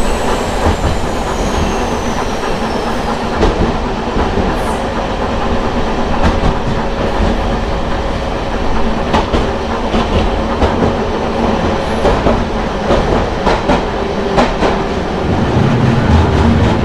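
Hankai Tramway Mo 351-series tram running, heard from inside at the front: the hum of its nose-suspended (tsurikake) traction motors and gearing, with wheels clicking over rail joints. The low motor note grows louder in the last second or two.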